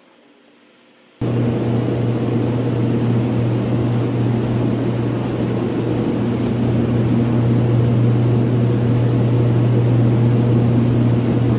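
Loud, steady machine hum with a low drone, starting abruptly about a second in after a faint hiss.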